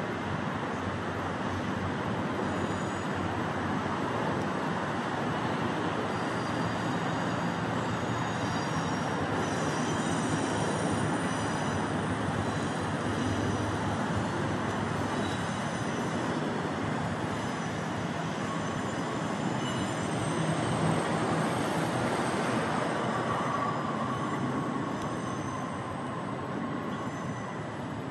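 Steady urban background noise by a river, an even rumble and hiss with no single clear source, and a faint high whine in the last third.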